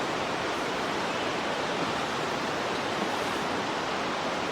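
Steady rushing of flowing water, an even hiss with no breaks or distinct events.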